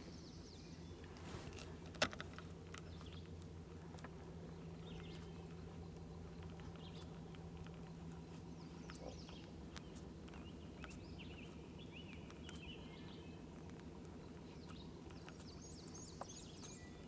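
Birds chirping faintly over a steady low hum, with a single sharp click about two seconds in.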